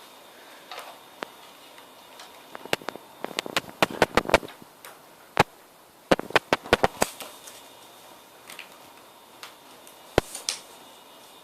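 Hard plastic clicks and taps from a Nerf blaster stock being taken out and handled, in two quick clusters of about half a dozen clicks with a few single knocks and soft rustles between them.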